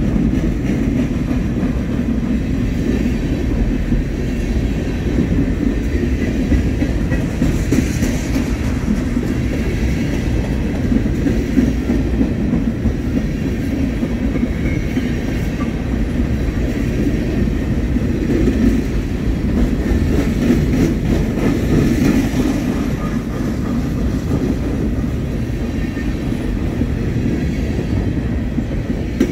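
BNSF freight train's cars rolling past in a steady, continuous rumble, with faint clicking of wheels over the rails.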